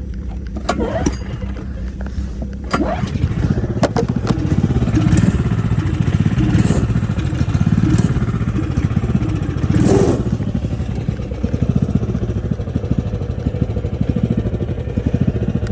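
Polaris 120 youth snowmobile's small engine being started: a few sharp clicks, then about three seconds in it catches and runs louder, revving up several times before settling into steady running.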